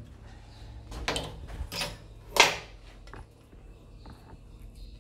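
Handling noise of a stainless steel faucet and its braided supply hoses as the hoses are fed through the faucet body: a few brief scrapes and knocks, the loudest about two and a half seconds in, over a faint low hum.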